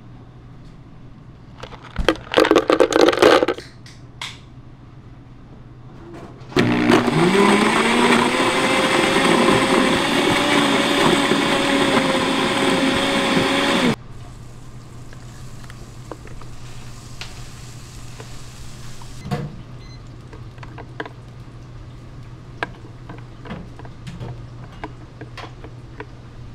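A blender mixing a milkshake: after a short clatter, the motor spins up with a rising pitch about six seconds in, runs steadily for about seven seconds, and stops abruptly. Light clicks and taps follow.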